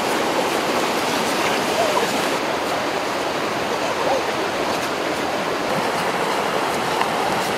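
Mountain stream rushing over rocks in small white-water cascades, a steady, even rush of water.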